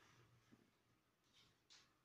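Near silence: room tone with a faint low hum and two brief faint rustles of cotton fabric being handled about a second and a half in.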